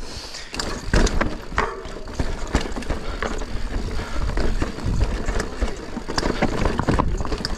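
Mountain bike rolling down a rocky trail: a steady clatter of tyres and frame knocking over stones, with dense, irregular rattles and wind noise on the microphone.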